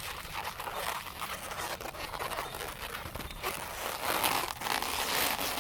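Latex modelling balloons being twisted and worked by hand: a continuous run of small rubbing creaks, rustles and clicks, louder near the end.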